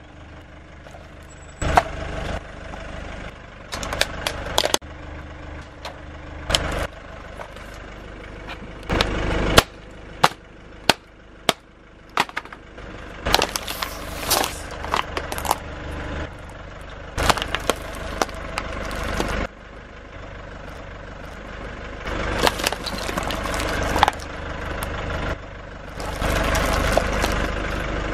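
Car tyre rolling over and crushing hard plastic: a computer keyboard snapping and cracking, then plastic bottles of liquid cracking and bursting under the wheel. Many sharp cracks and crunches come in clusters, over the car's engine idling.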